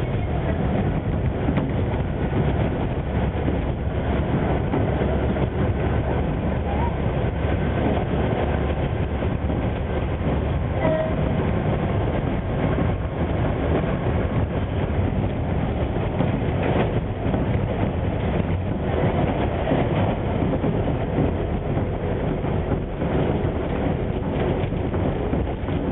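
Shimabara Railway KiHa 20 diesel railcar running, heard from inside the cabin: a steady noise of the engine and the wheels on the rails.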